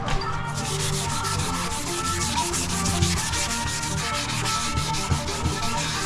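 Sanding on a car's quarter panel repair: a steady, fast scrubbing rasp with no break, with background music underneath.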